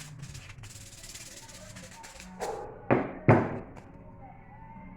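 Two sharp knocks about a third of a second apart, over quiet background music.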